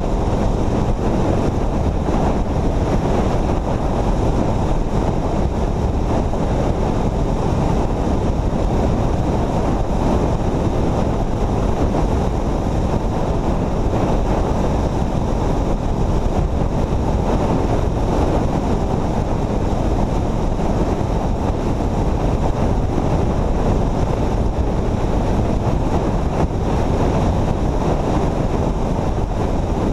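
Steady wind rushing over the microphone, mixed with road noise, from travelling at highway speed.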